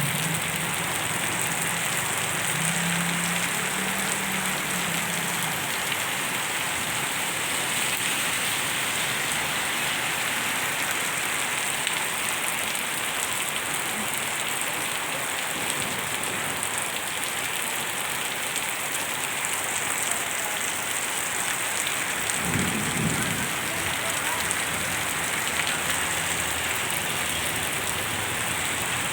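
Heavy rain pouring down steadily, with a short low rumble about three-quarters of the way through.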